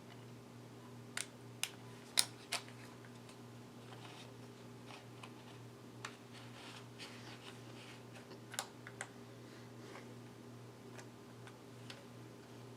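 Scattered small clicks and taps of laptop parts being handled and seated during an SSD and RAM install, four sharp ones close together in the first few seconds and a few more later, over a faint steady hum.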